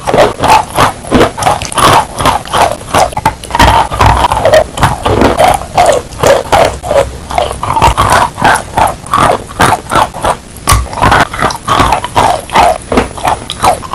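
Close-miked wet crunching and chewing of chunks of clay dipped in wet clay slurry, the crunches coming in quick succession, several a second.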